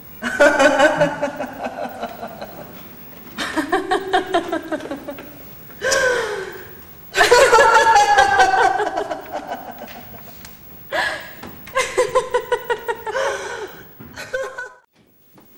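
A woman laughing hard in a string of bursts, each a fast run of pulsed "ha-ha" sounds that falls in pitch, with short breaths between them. The laughter fades near the end.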